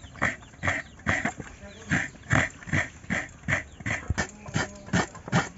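Fresh coconut being scraped by hand against a grater, a rhythmic scrape about two to three strokes a second as the flesh comes off in shreds.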